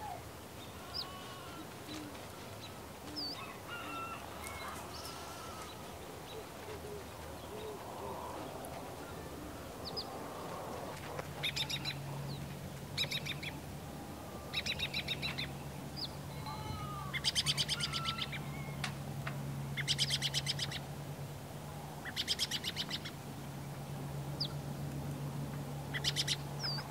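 Birds calling: scattered short chirps and whistles, then from about eleven seconds in several rapid rattling, honking calls a second or two apart, over a low steady hum.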